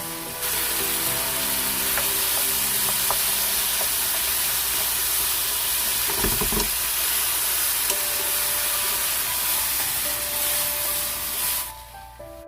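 Food sizzling loudly in a hot pan as it is stir-fried, likely the jisamseon eggplant, potato and green pepper. The sizzle jumps up about half a second in, with a few low knocks of the spatula against the pan about six seconds in, and stops shortly before the end.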